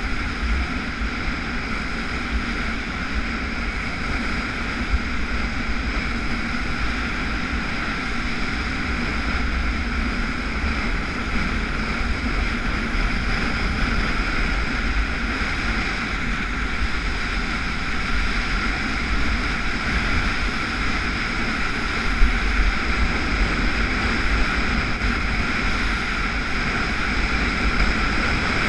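Steady rushing of a water ski planing at speed over the wake of a towing motorboat, with heavy wind buffeting on the microphone.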